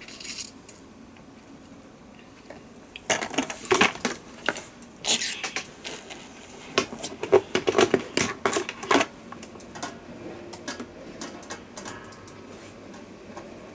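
A quick run of small clicks, taps and light clatter, as of objects being handled on a table; it starts about three seconds in, is densest for several seconds, then thins to occasional faint ticks.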